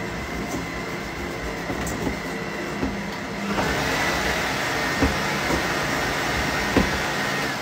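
Russell Hobbs electric stand mixer running, beating dry sugar and custard powder in its steel bowl. The motor grows louder and higher-pitched about halfway through and stops at the end.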